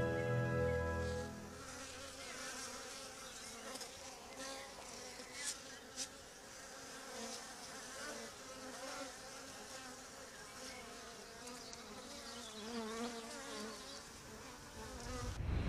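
Honeybees buzzing at a hive entrance, a faint wavering hum from several bees flying in and out close to the microphone, with a couple of light clicks in the middle. Background music fades out in the first second or so, and a low whoosh swells at the very end.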